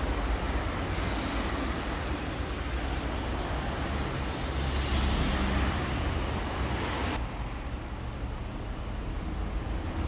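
Porsche 911 Turbo Cabriolet's flat-six engine running, a steady deep rumble that swells slightly about five seconds in; its higher, hissy part drops away suddenly about seven seconds in.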